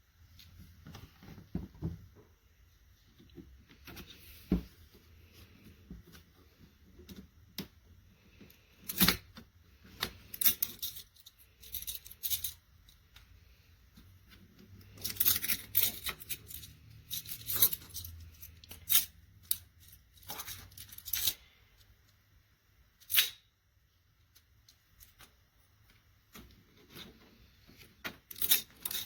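Packaging being handled and torn open by hand: irregular bursts of crinkling and tearing mixed with sharp clicks and knocks of hard pieces.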